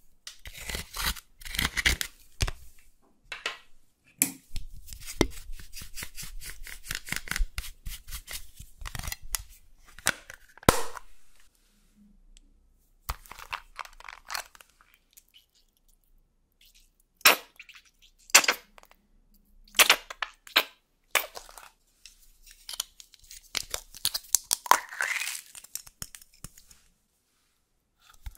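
A tool scraping and crumbling pressed eyeshadow out of a plastic makeup palette, a dense run of quick dry scratches and clicks. In the second half come several separate sharp plastic clicks and snaps as a makeup tube and a plastic container are handled.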